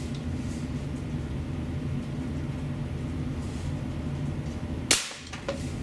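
A steady low rumble, then a single sharp crack about five seconds in: the APS APM50 CO2 rifle firing a steel BB. A few quick clicks follow near the end.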